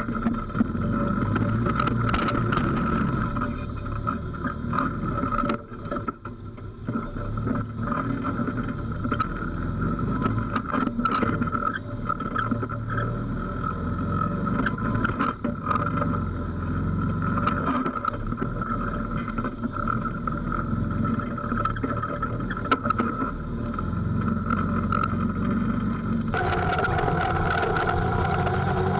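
Textron Havoc X UTV engine running at low speed while crawling over rocks, with occasional sharp knocks as the machine climbs. About 26 seconds in, the sound changes to a steadier engine note as the UTV drives along a dirt road.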